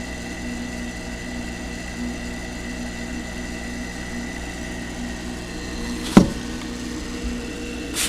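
Steady electrical hum and hiss with a pulsing buzz, broken by a single sharp knock about six seconds in and a lighter click at the end.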